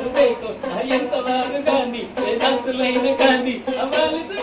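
A song: a singing voice carrying a melody over music with a steady beat.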